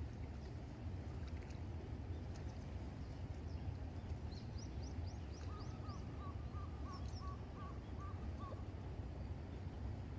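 Birds calling over a steady low rumble: a quick run of about six high, rising chirps around four seconds in, then a repeated call of about eight notes, roughly three a second.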